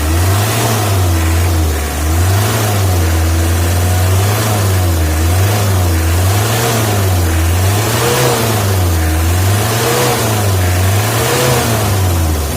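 Diesel engine of a 1985 Toyota Hiace revved up and down over and over, about once every second and a half. It runs smoothly with no misfiring or stuttering, its rotary injection pump freshly fitted with a new feed pump and drive-shaft bushing.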